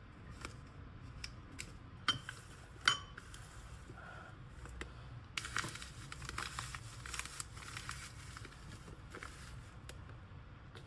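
Tea being packed into a jar: light clicks and two ringing clinks, like glass or ceramic, in the first few seconds, then a couple of seconds of crinkling packaging.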